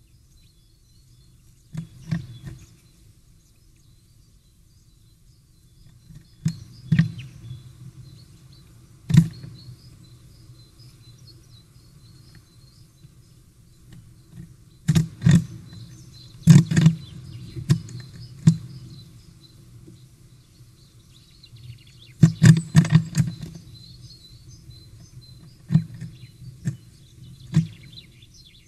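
A great tit's claws and bill knocking and scratching on the wooden entrance hole of a nest box as it clambers in and out. The sounds come in irregular clusters of dull knocks, with faint high bird chirps in the background.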